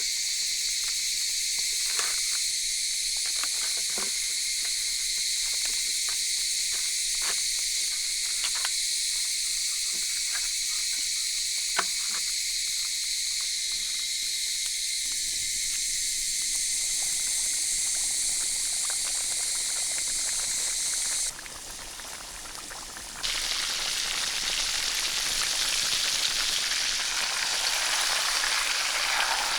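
A steady high-pitched chorus of insects with scattered light clicks and taps. About 21 seconds in it cuts out, and after a short quieter gap hot oil sizzles as turkey deep-fries.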